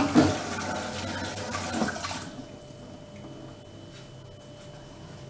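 Kitchen tap running as hands are washed under it, the water shutting off a little over two seconds in; a faint steady hum remains.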